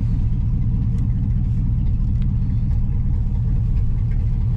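Third-generation Camaro's engine idling with a steady low rumble, the freshly rebuilt 700R4 automatic transmission engaged in reverse as the car creeps backwards.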